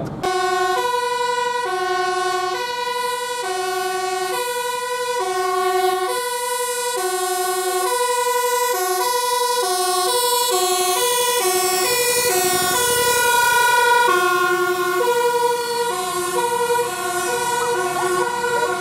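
Dutch fire engine running its two-tone siren, the two pitches alternating about once a second as it drives past, with its engine briefly heard under the siren about two-thirds of the way in.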